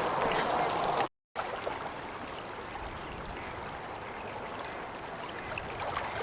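Steady rush of running stream water, cut off abruptly for a moment about a second in and then continuing a little quieter.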